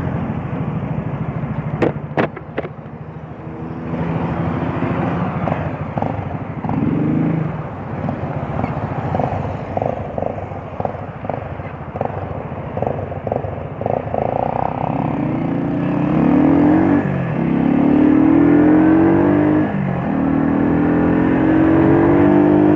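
Small motorcycle engines idling at a stop, with a few sharp clicks about two seconds in. From about fifteen seconds in they accelerate away, the engine note climbing and dropping back several times as it gathers speed.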